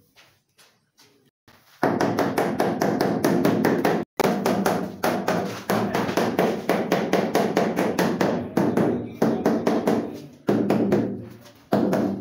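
A mallet tapping a large ceramic wall tile in a rapid, even run of several blows a second, bedding it into the adhesive behind. The tapping starts about two seconds in and pauses briefly near the end.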